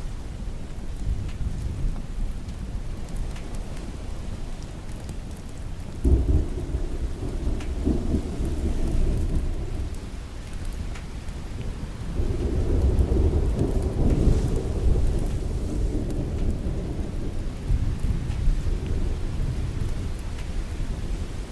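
Steady rain with two rolls of thunder: the first breaks suddenly about six seconds in and rumbles for a few seconds; the second, louder one builds a few seconds later and fades slowly.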